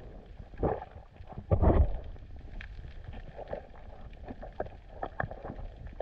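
Underwater audio of a diver's air bubbles and water gurgling as he swaps his snorkel for the BLU3 Nomad regulator: a short gurgle about half a second in and a louder one about a second and a half in, then soft crackling and small clicks over a low rumble.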